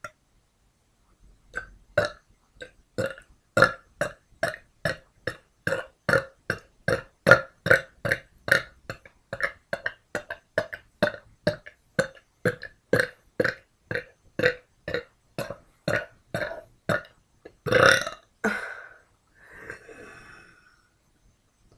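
A woman burping in a rapid string of short, small burps, about two or three a second, then one longer burp near the end followed by a fainter drawn-out one.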